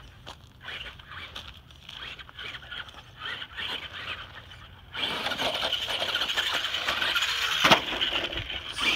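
Traxxas Rustler RC truck running over dirt and gravel, faint at first. About five seconds in it comes close and gets much louder, its motor and tyres on gravel filling the sound, with a sharp knock shortly before the end.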